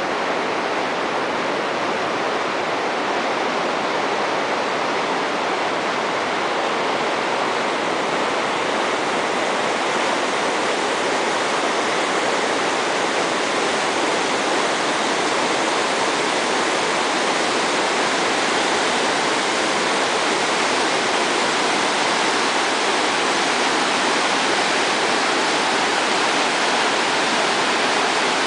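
River rapids at spring high water: a steady rush of whitewater, growing slightly louder toward the end.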